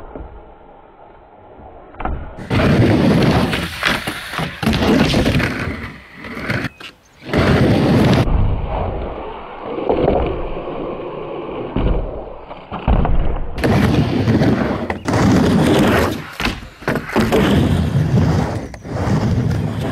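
Skateboard on a wooden mini ramp: wheels rolling across the ramp with repeated board clacks and landing thuds, quieter for the first two seconds.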